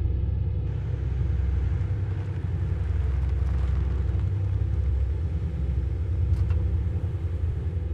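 Steady low rumble at an even level, with no clear starts or stops.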